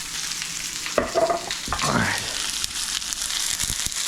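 Frying pan sizzling steadily on the stove, with a sharp knock about a second in.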